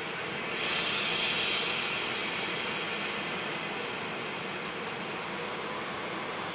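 EP07 electric locomotive running steadily at a platform as it prepares to pull away, its cooling blowers and machinery making a continuous hum. About half a second in, a loud hiss swells up and then fades over the next two seconds.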